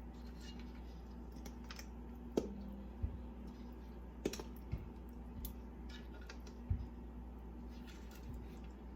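Scattered light clicks and knocks of kitchen handling as seasoned chicken legs are set into a skillet, with a few louder knocks in the middle, over a steady low hum.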